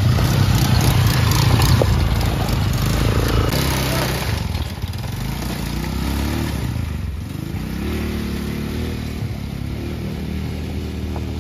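ATV engine running, loudest in the first four seconds, then revving up and down several times.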